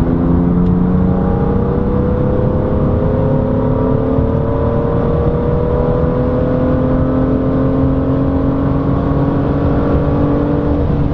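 BMW M2's turbocharged straight-six through an Akrapovic Evolution exhaust, heard from inside the cabin under hard acceleration from about 120 km/h. The engine note climbs slowly and steadily.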